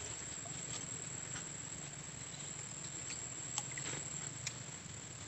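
Steady high, thin chirring of insects, likely crickets, in marsh vegetation, with a few faint ticks.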